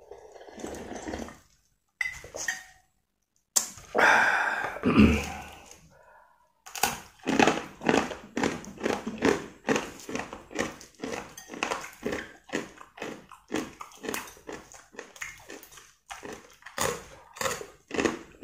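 Slurping and gulping the last of the noodle soup broth from a tipped bowl. From about seven seconds in comes steady crunching and chewing on a homemade fried rice cracker (kerupuk nasi), about two crunches a second.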